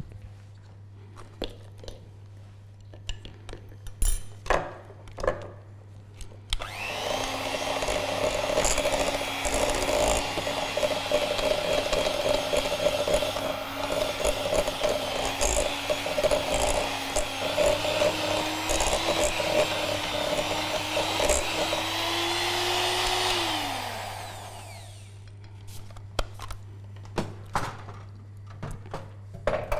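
Electric hand mixer running with its beaters in a crumbly shortbread dough in a glass bowl. It starts about six seconds in, runs steadily for about seventeen seconds with its pitch creeping slightly higher, then winds down. Light taps and clinks of utensils against the bowl come before and after.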